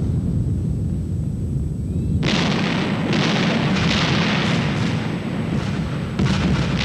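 Warship gunfire and shell explosions: a deep rumbling, then about two seconds in a sudden loud blast followed by a run of further blasts.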